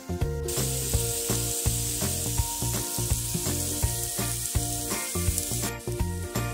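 Slices of pork belly sizzling on a hot griddle plate, a dense hiss that starts about half a second in and stops abruptly near the end. Background music with a steady beat plays throughout.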